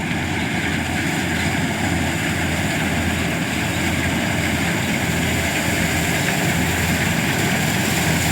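Preet combine harvester running steadily, its engine and machinery giving a constant loud drone.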